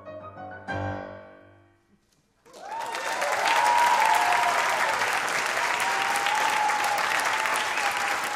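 A final chord on a Steinway grand piano rings out and dies away. After a moment's silence, loud applause breaks out and carries on, with a long cheer or whistle sounding over it.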